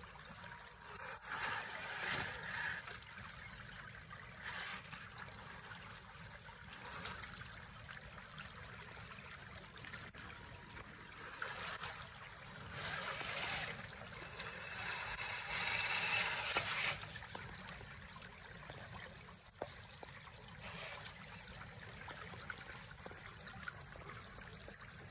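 Shallow creek water running over rocks, with swells of splashing as an RC crawler truck's tires push through the water, the biggest surge about halfway through.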